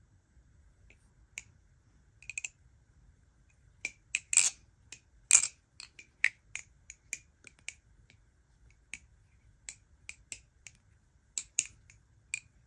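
Marcolo Comet balisong being flipped: irregular sharp clicks and clacks as the handles swing round and strike the blade's tang. They come loosely spaced, bunching most thickly and loudly in the middle.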